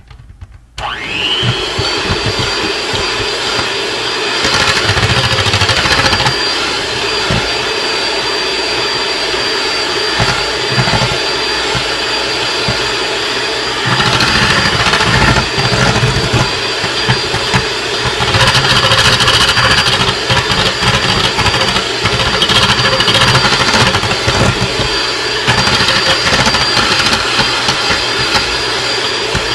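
Cuisinart electric hand mixer switching on about a second in with a rising whine, then running steadily as its beaters whip egg whites and egg white powder in a stainless steel bowl, louder in stretches.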